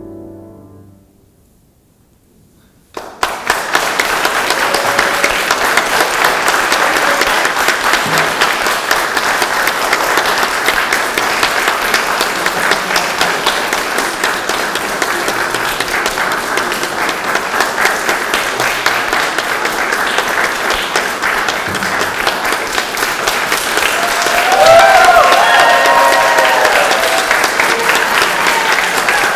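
The last piano-and-cello note dies away into a brief hush, then about three seconds in an audience breaks into steady applause. Near the end, a few voices cheer over the clapping.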